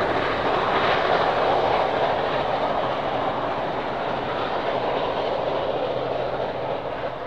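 Heritage passenger carriages rolling past on steel rails: a steady rumble and clatter of wheels on track, easing off near the end as they draw away.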